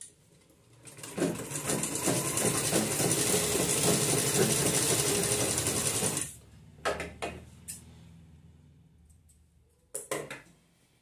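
Sewing machine running fast, stitching through cloth for about five seconds with a rapid even needle rhythm, then stopping. A few short sharp clicks follow, and another pair comes near the end.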